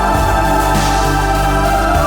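Background music with sustained organ-like chords.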